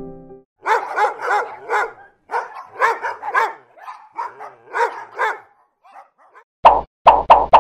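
A dog barking: a long run of short, high-pitched yaps, then a few louder, sharper barks near the end.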